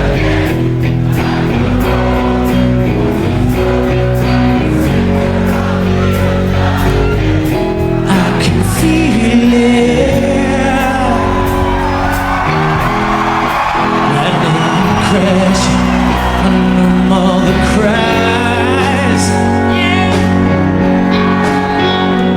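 Live rock band playing a slow rock ballad: guitars and bass holding sustained chords under a male lead singer's voice.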